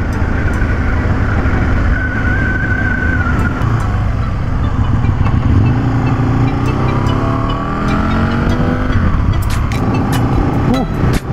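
Aprilia Tuono 1000R V-twin engine running under steady wind rush on the move, its revs climbing between about five and nine seconds in as the bike accelerates. A few sharp clicks come near the end.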